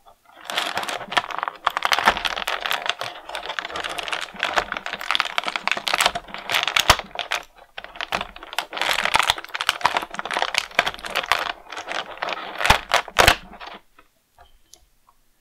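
Thin clear plastic blister tray crackling and crinkling as an action figure is pried out of it, a dense, irregular run of clicks with a few sharper snaps. The crackling stops shortly before the end.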